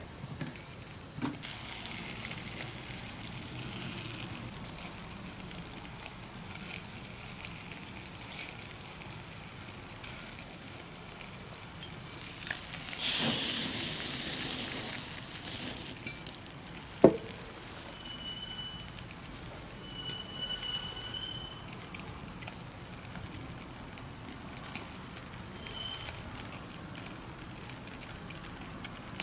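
Insects chirring steadily in several high-pitched bands beside a campfire. A louder hissing rush rises about 13 seconds in and fades over some three seconds, and a single sharp snap comes about 17 seconds in.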